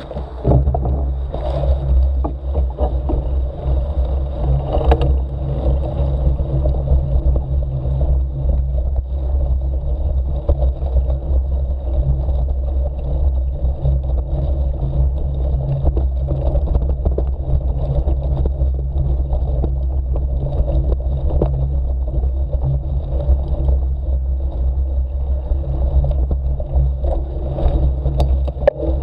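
Motorcycle engine running steadily at low revs as the off-road bike rolls slowly over a rough sandy track, with a few light knocks from the ride.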